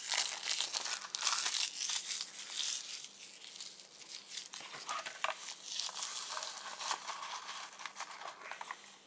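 Clear cellophane wrapper of a Keyforge card deck crinkling and tearing as it is pulled open by hand along its red tear strip. The crinkling is loudest for the first three seconds, then dies down to softer rustling and handling.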